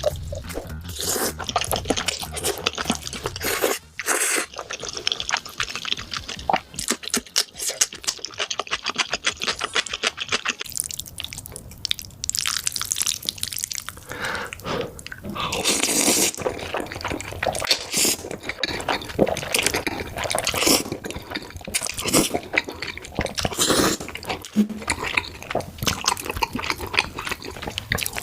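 Slurping and chewing of black bean noodles (jajangmyeon): a dense run of quick smacks and clicks from the mouth.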